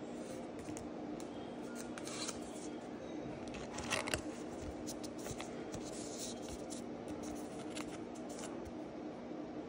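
A Pokémon trading card being handled and slid into a plastic card sleeve: short scrapes and clicks of card against plastic, loudest about four seconds in.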